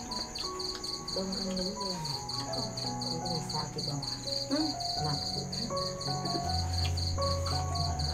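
Crickets chirping in a fast, even pulsing rhythm, with soft music of long held notes underneath.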